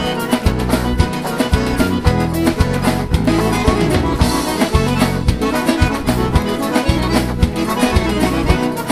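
Instrumental break of an upbeat sertanejo bailão song: accordion leading over guitar and a steady bass-and-drum beat.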